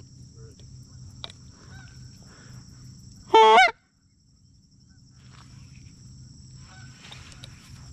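A single loud goose honk, about half a second long, a little past three seconds in, with a few faint honks farther off later on.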